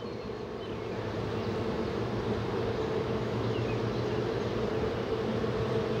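Honeybees buzzing around an opened hive and a frame held up out of it: a steady, even hum.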